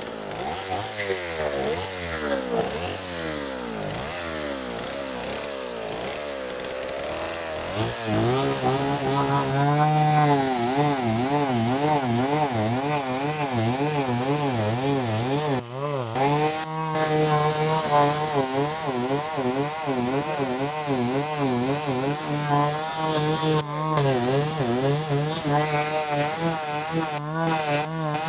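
Two-stroke chainsaw running, its engine rising to a higher pitch about eight seconds in and then held at speed with the pitch wavering up and down, as when it is cutting wood.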